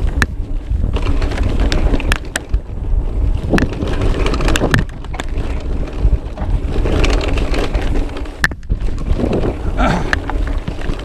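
E-mountain bike descending a rough trail: heavy wind noise on the microphone, with the bike rattling and knocking over the ground in sharp, irregular clicks.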